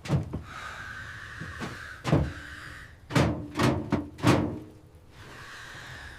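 A series of heavy knocks: one at the start, one about two seconds in, then three in quick succession.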